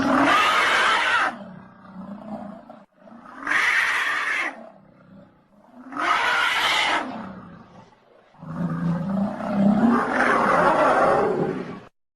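Oxalaia dinosaur roar sound effects: four loud roars with short gaps between them, the last one longer than the others.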